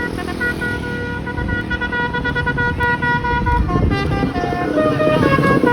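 Bus 'telolet' multi-tone horn playing a quick tune of stepped notes that moves lower near the end, over a steady low rumble.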